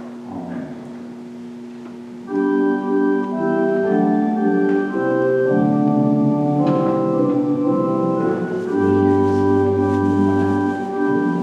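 Church organ playing slow sustained chords. They enter fully about two seconds in, and a deep pedal note is held for a couple of seconds near the end.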